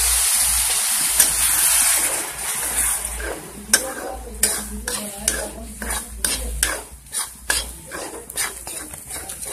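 Spiced masala in a kadai sizzling loudly just after a splash of water hits the hot oil, the hiss dying down after about two seconds. A spatula then stirs and scrapes the pan, about two strokes a second.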